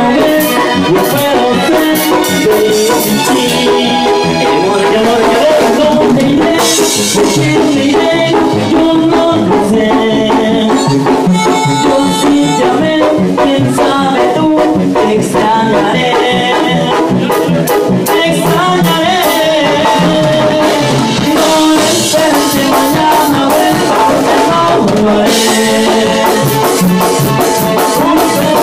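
A live Mexican regional band playing loud, with drum kit, keyboards and shaker-type percussion, and a singer on the microphone.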